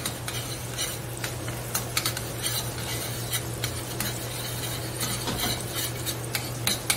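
Butter melting and sizzling in a hot stainless steel pan while a spoon stirs it, scraping and clicking against the pan several times a second, over a steady low hum.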